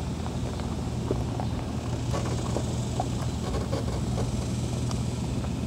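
Mercury Pro XS outboard motor running steadily with a constant low hum, with a few faint light clicks over it.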